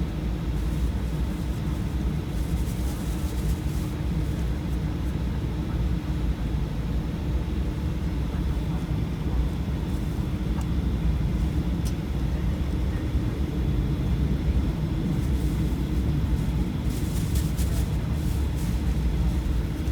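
Aircraft engine drone heard from inside the cabin in flight: a steady low rumble with a few faint crackles.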